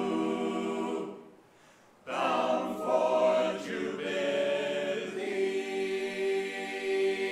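Small choir singing a gospel song a cappella. The singing breaks off about a second in, and after a short pause the closing phrase ends on a long held chord.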